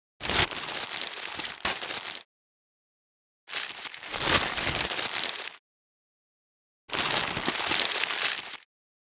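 Paper rustling, in three separate bursts of crackly rustle about two seconds each, with silence between them.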